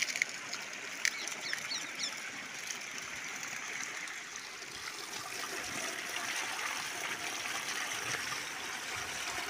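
Muddy rainwater flowing steadily over a small stone ledge and trickling into a pool, a continuous splashing rush.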